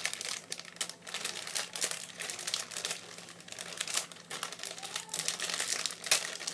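A Nerunerune candy packet being torn and pulled open by hand, crinkling and crackling in quick, irregular bursts.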